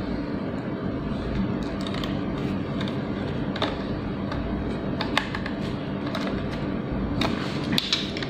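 Scattered light clicks and taps of small laptop parts being handled while an SSD is fitted, over steady background music.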